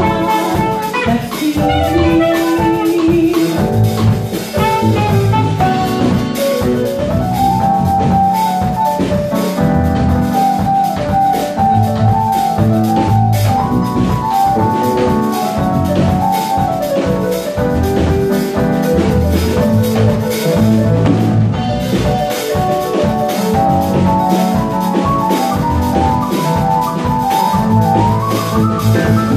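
Live gospel-jazz band playing: a saxophone melody over drum kit, a low bass line and keyboard, going without a break.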